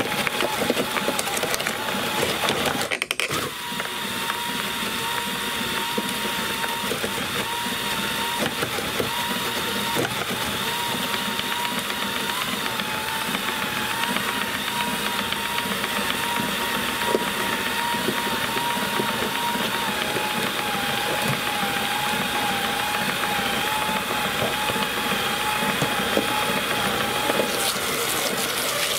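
Electric drill driving a 3D-printed twin-shaft compost shredder, its motor whining steadily while the cutters crunch through chunks of food scraps. The whine wavers in pitch as the load changes, drops out for a moment about three seconds in, and sinks slightly lower in the second half.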